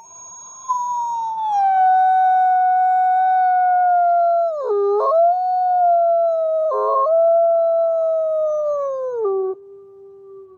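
A white wolf howling: one long howl that slowly slides lower in pitch, dipping briefly twice midway, then drops near the end to a fainter, low held note.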